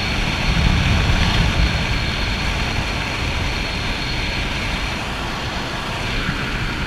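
Steady drone of a skydiving jump plane's engine and rushing air inside the cabin in flight, a little louder in the first couple of seconds.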